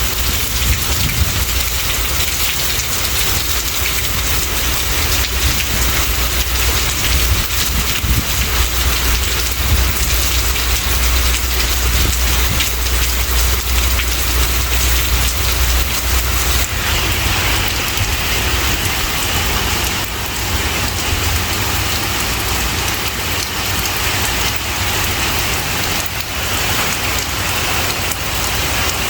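Steady heavy rain falling, an even hiss of drops on surfaces. A low rumble underneath stops about sixteen seconds in, and the hiss turns a little brighter after that.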